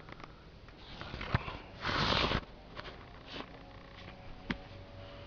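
One short, loud sniff close to the microphone about two seconds in, with a few light clicks and knocks from handling before and after it.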